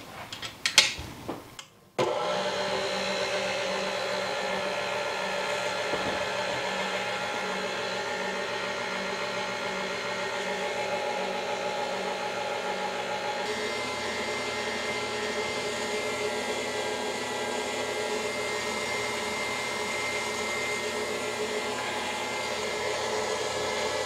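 A few clicks, then about two seconds in a tilt-head stand mixer switches on and runs steadily, its wire whisk beating cream cheese and sweetened condensed milk into icing. Its sound shifts slightly about halfway through.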